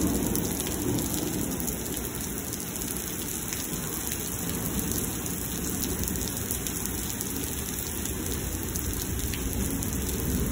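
Heavy thunderstorm rain pouring onto pavement, a steady hiss with a low rumble underneath that is strongest in the first second.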